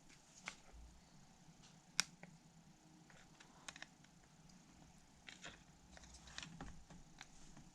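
Near silence broken by a few faint, sharp clicks and taps, the sharpest about two seconds in: small plastic phone parts and tools being handled during a teardown.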